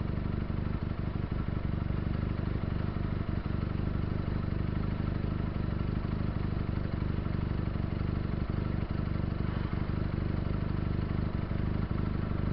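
Benelli TNT300's 300 cc parallel-twin engine idling steadily while the motorcycle waits at a red light, with no revving.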